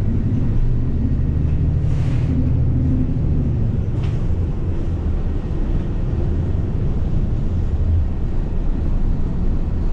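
Nova Bus LFS city bus running, heard from inside the passenger cabin: a steady low engine and road rumble. A low hum rises out of it for a couple of seconds soon after the start.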